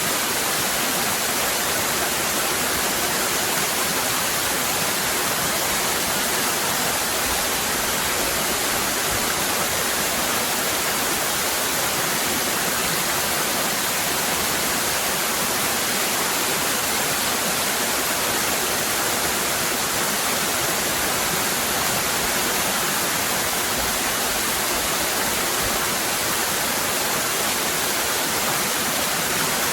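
Cascading waterfall: a steady, even rush of falling water, unbroken and hissy up into the highest pitches.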